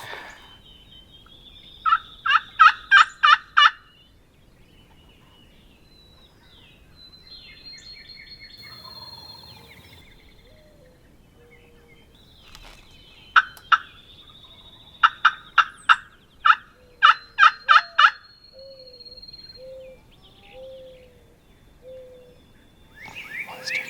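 Wild turkey calling close by: a loud run of about six sharp notes around two seconds in, and another longer run of about ten from thirteen to eighteen seconds, with fainter songbird notes between them.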